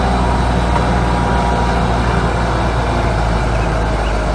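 Diesel engine of a Grove RT530E rough-terrain crane running with a steady, heavy low hum.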